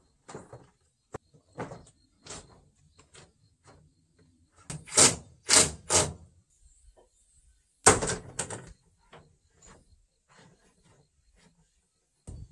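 Irregular scraping and knocking strokes from work on a hanok roof where earth is being laid as ceiling insulation. A quick run of three loud strokes comes around the middle, then one more loud stroke followed by a few lighter ones.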